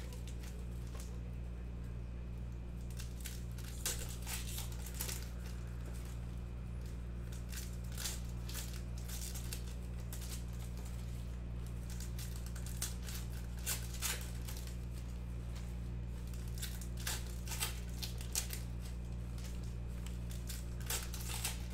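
Foil wrappers of 2021 Panini Donruss Football card packs crinkling and tearing as they are ripped open, short sharp crackles scattered throughout, over a steady low hum.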